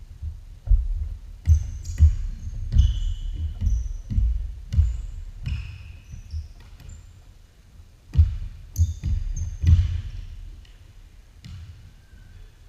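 Basketball bouncing on a hardwood gym floor: a run of thuds during a pickup game, roughly one every half second to second, thinning out near the end. Short high squeaks of sneakers on the hardwood come between the thuds.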